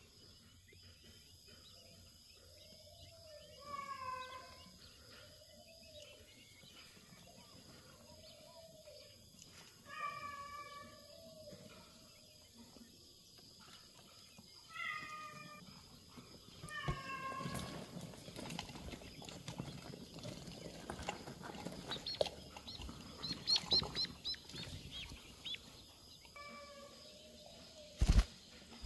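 Animal calls in a quail brooder. A drawn-out pitched call comes every few seconds, then there is rustling with a quick run of high peeps from the quail chicks. Two loud knocks come near the end.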